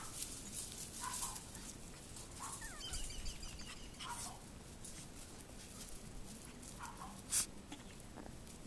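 Chihuahua puppies giving short, high yips every second or two, some dropping in pitch. There are light scuffling ticks throughout and one sharp click about three-quarters of the way in.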